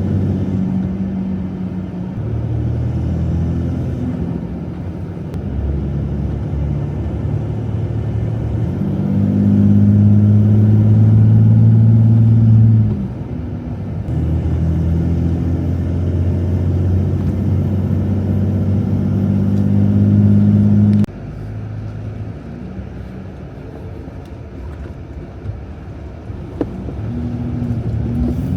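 Diesel Jeep Gladiator engine running with a steady low drone, in several stretches of differing loudness that change abruptly, the louder parts falling off sharply about two-thirds of the way through.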